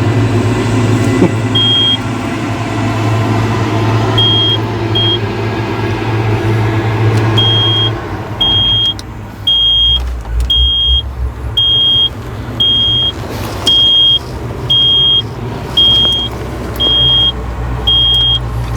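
Excavator cab warning buzzer beeping, one high steady tone about once a second for the last half, with a few scattered beeps earlier, over a steady low mechanical hum that drops away about eight seconds in.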